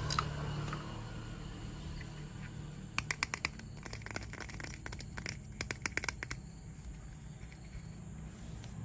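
Two quick runs of small, sharp plastic clicks from a toy train set, over a low steady hum.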